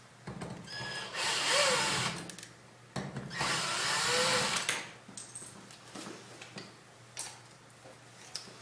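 Black & Decker VPX cordless drill-driver run twice, about a second and about three seconds in, each run lasting a little over a second as the motor speeds up and winds down, driving out screws to free the old keying disc.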